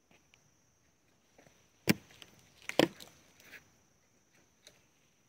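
Dry branches being snapped for firewood: two sharp cracks about a second apart, with a few lighter cracks after them.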